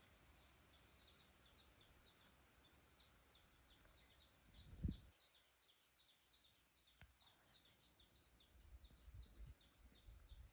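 Faint outdoor ambience of birds chirping steadily, several short high chirps a second. A single low thump about five seconds in.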